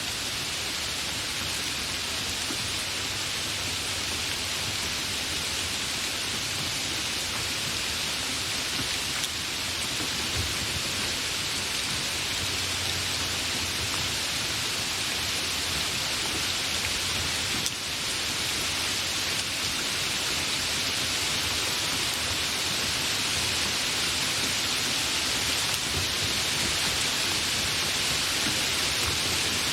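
Steady, fairly heavy rain falling: a dense, even hiss without thunder, growing a little louder toward the end.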